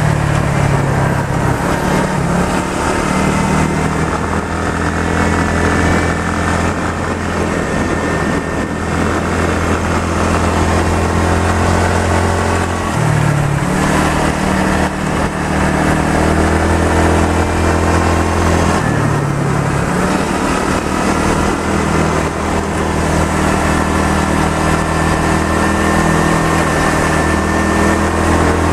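Motorcycle engine running steadily while riding, over a steady rushing noise of wind. The engine note shifts briefly twice, about midway and again about two-thirds of the way through.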